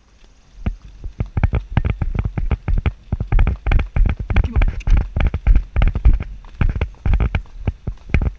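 Horse's hooves striking a stony dirt track in a quick run of beats, several a second, starting about half a second in as the horse picks up pace.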